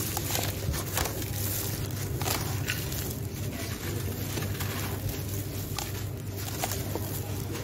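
Dry sand-cement chunks crushed in the hands, crunching and crackling, with gritty crumbs pouring and pattering into a plastic tub. Scattered sharp crunches sit over a steady low hum.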